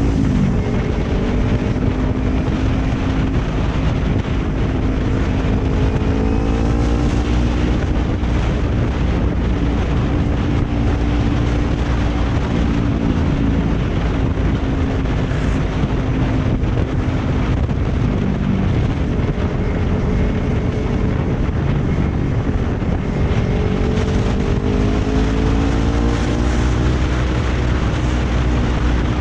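Kawasaki Ninja 250 FI's parallel-twin engine running under the rider while cruising, its pitch rising twice as the bike accelerates, with wind rushing over the microphone.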